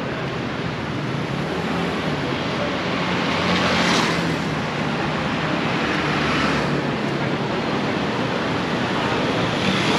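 Street traffic: motor scooters and cars riding past, a steady hum of engines and tyres with two swells as vehicles pass, about four seconds in and again near six and a half seconds.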